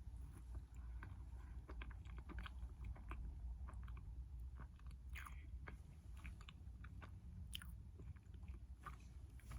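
Chewing a soft chocolate mochi roll cake: moist mouth sounds with many small clicks, and a few louder smacks about five seconds in and near the end.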